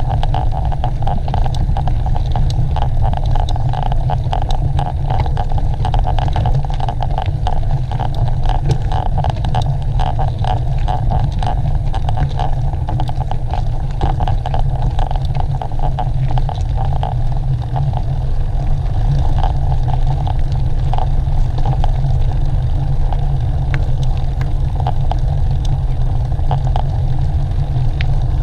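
Steady wind rumble on the microphone of a camera carried along a race course, with many small clicks and rattles throughout.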